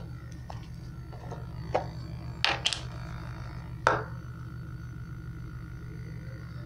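Plastic tubs and lids knocking as they are handled and set down on a sink basin: about five short sharp knocks, two of them close together, over a steady low hum. A faint high tone lingers after the last knock.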